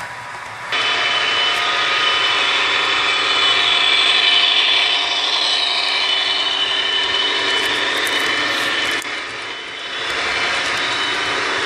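Model trains running past on the layout track: a steady whine of the locomotive motors over the rush and rattle of wheels on the rails. It jumps louder under a second in and dips briefly about nine seconds in.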